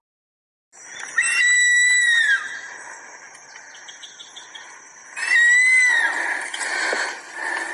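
Animal calling twice, about four seconds apart: each call is a high, drawn-out whistle-like tone with overtones that wavers and then falls away, over a steady background hiss.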